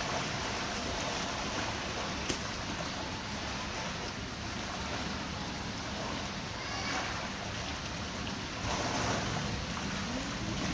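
Pool water splashing and sloshing around Asian elephants as a mother and calf roll and wallow in it. There is a steady wash of noise throughout and one sharp click about two seconds in.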